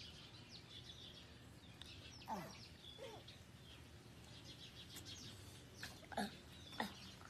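Faint chirping of small birds throughout, with a few short, louder calls that fall in pitch: one about two seconds in and three close together near the end.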